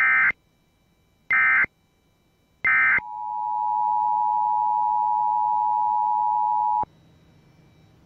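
Emergency Alert System activation: three short bursts of SAME digital header data about a second and a half apart, then the EAS two-tone attention signal (853 and 960 Hz sounded together), a steady tone held about four seconds that cuts off suddenly. The header opens a Required Monthly Test.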